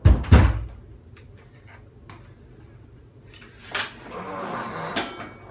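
Handling noises as a rider gets onto a parked Harley-Davidson Breakout: two heavy thumps right at the start, then, after a pause, rustling with a few sharp clicks; the engine is not running.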